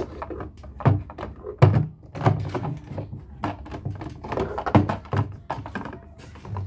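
Toy trains and toy pieces being handled and set down on a hard surface: a string of irregular clicks and knocks with several heavier thuds.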